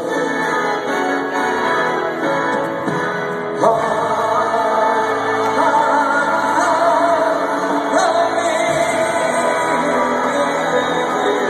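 Live band music with singing voices played over a large arena's sound system, heard from the stands with the hall's echo. A new chord or section comes in about four seconds in.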